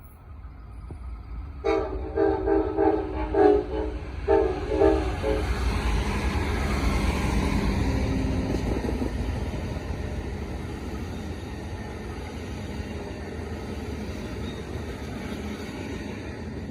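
Diesel locomotive horn sounding a chord in a string of short blasts, starting about two seconds in and lasting about three and a half seconds. The train then runs past with a steady rumble and rail noise that slowly fades.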